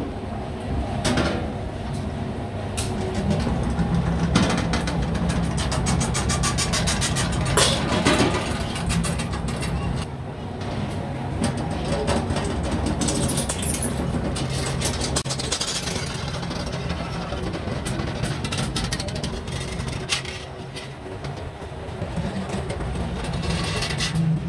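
Circle-cutting shear machine running with a steady low hum while a rusty steel sheet is fed through its cutting wheels to cut a round blank. Over the hum come clanks and rattles of the steel sheet, a stretch of fast ticking, and a scraping hiss about halfway through.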